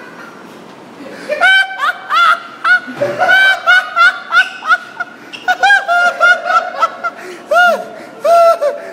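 Laughter in a rapid run of short, high-pitched bursts, several a second, starting about a second and a half in.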